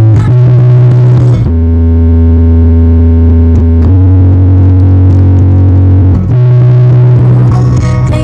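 Loud, distorted synthesizer music with long held bass notes that change pitch about every two seconds, played through a large sound-check rig of 24 subwoofers and 16 line-array speakers.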